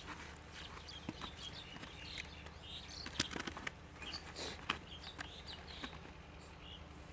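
Catfish being dropped into and flapping in a plastic bucket, with wet slaps, knocks and squelches of mud handled by hand, bunched about three to five seconds in. Short high chirps come and go in the background.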